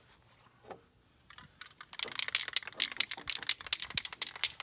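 Metal hand tools clicking and rattling rapidly and irregularly, starting about two seconds in.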